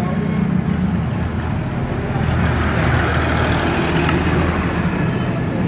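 Road traffic noise, with a vehicle passing about three seconds in, over a steady low hum.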